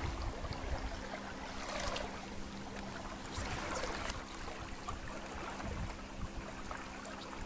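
Water rushing and splashing along the hull of a small sailing yacht under way, with a few louder swishes, about two seconds in and again near four seconds. Wind buffets the microphone throughout.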